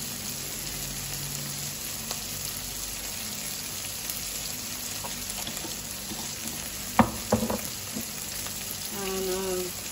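Onions, tomatoes and chili frying in a nonstick pan: a steady sizzle, broken by two sharp knocks about seven seconds in.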